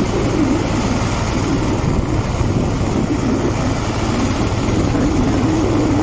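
Motorised dog, a small tracked snow tow, with its engine running steadily while it is under way through snow.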